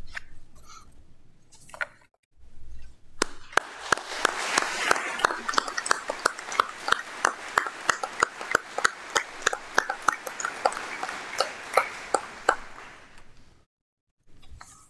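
Audience applauding: clapping starts about three seconds in, with a few loud close claps standing out, and dies away near the end.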